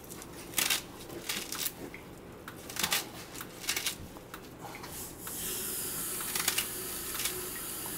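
Knife shredding a bunch of callaloo leaves held in the hand over a steel bowl: irregular crisp cuts and leaf rustling. A steady hiss joins about five seconds in.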